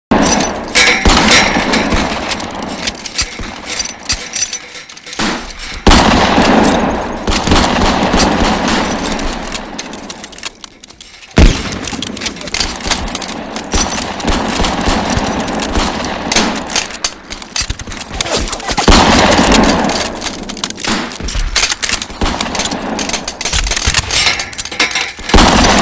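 Recorded gunfire sound effects: rapid automatic-weapon fire and volleys of shots that break in abruptly out of silence, with fresh loud volleys about six, eleven and nineteen seconds in.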